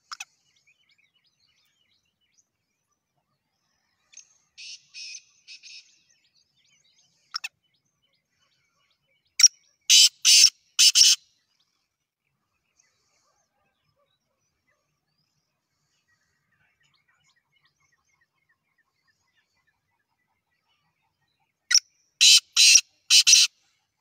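Black francolin calling: a few faint notes a few seconds in, then two loud calls about twelve seconds apart. Each loud call is a short opening note followed by a quick run of three or four notes.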